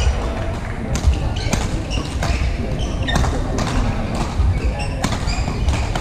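Badminton rackets striking a shuttlecock in a sports hall: sharp, echoing cracks at an uneven pace of about one a second, from this court's rally and the courts around it, over the hall's low rumble of footfalls and movement.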